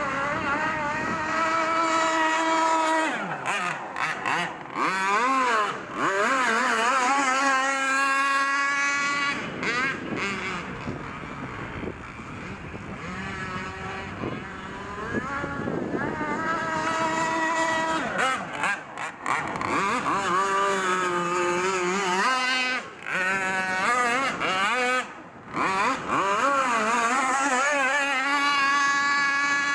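Gas-powered RC boat engine running at high revs, its pitch rising and falling and wavering. It eases off briefly a few times.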